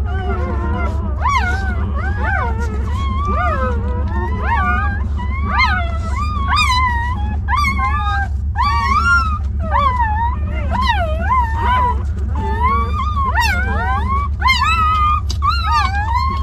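Newborn puppies crying, many short high-pitched squeals and whimpers overlapping without pause, over a steady low hum.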